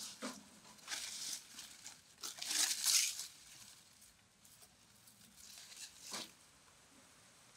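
Dry banana leaves rustling as they are pulled off a pile of harvested cassava roots, in three bursts, the loudest about three seconds in.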